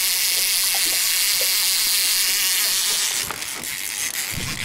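A fishing reel's drag buzzing steadily as a hooked fish pulls line off. It stops about three seconds in, and a few clicks of the reel follow.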